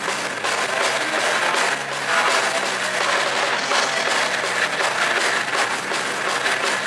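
Live heavy metal band playing loud, distorted electric guitar and bass over drums, a dense and continuous wall of sound.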